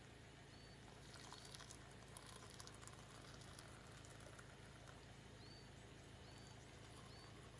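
Near silence: faint ambience with five short, high bird chirps spread through it.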